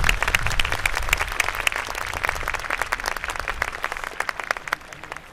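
Crowd applauding. The dense clapping thins into scattered claps and dies away near the end.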